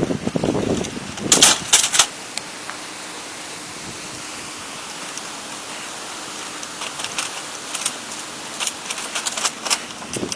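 Sharp knocks and clicks of hand work on wood: a loud cluster about a second and a half in, then scattered lighter clicks near the end, over a steady hiss.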